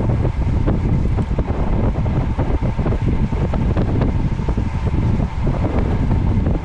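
Heavy wind buffeting the microphone of a moving camera: a loud, steady low rumble crowded with short crackles.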